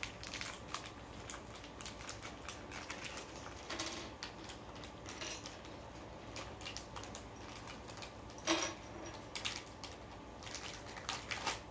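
Quiet, irregular clicks and crinkles of a plastic Lego minifigure packet being torn open and its small plastic parts handled, with one sharper click about eight and a half seconds in.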